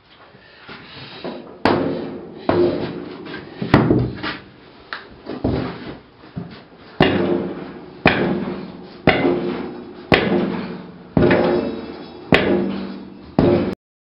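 Heavy blows struck about once a second, a dozen in all, each ringing out briefly before the next; the sound cuts off suddenly near the end.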